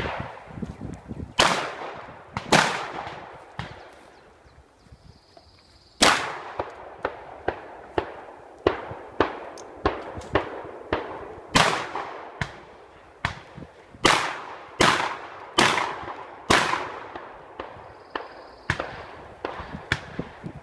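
Shotgun shots fired in irregular strings, several in quick succession, each loud crack trailing off in an echo, with fainter sharp cracks and knocks between them and a pause of about two seconds near the start.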